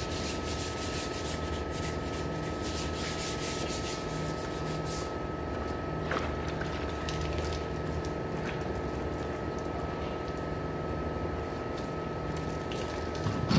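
Sandpaper rubbed by hand over the steel panel of a pickup tailgate in quick, rough strokes, keying the surface with 120 grit so body filler will grip. The strokes stop about five seconds in, leaving a steady mechanical hum with a thin high whine, and a short knock near the end.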